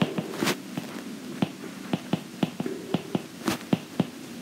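Stylus tip tapping and clicking on a tablet screen while handwriting: a string of irregular light clicks, several a second, with a few louder taps.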